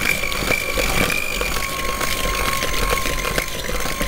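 Electric hand mixer running at a steady speed, its motor giving a constant whine, with scattered clicks as the beaters churn a thick, crumbly butter-and-sugar mixture in a plastic bowl.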